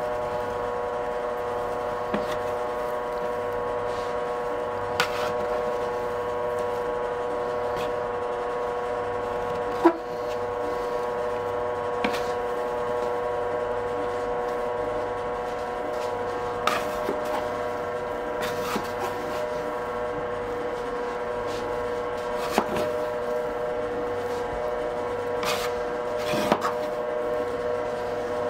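Dough being worked by hand in a wooden kneading trough: occasional knocks and rubs of hands and dough against the wood, over a steady pitched drone.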